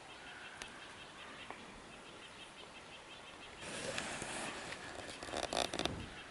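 Woodpecker tapping at wood: a short quick run of sharp knocks near the end, over a faint rapid high ticking earlier on.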